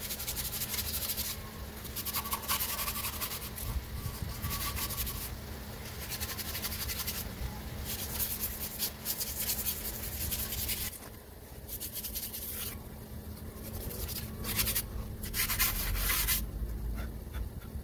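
A hand tool scraping against the front brake caliper bracket and disc in uneven runs of short strokes, cleaning off the brake surfaces.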